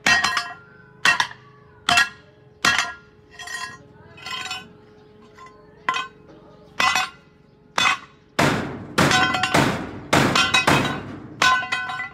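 Hammer striking metal, each blow ringing, about once a second. In the last few seconds the blows come faster and heavier.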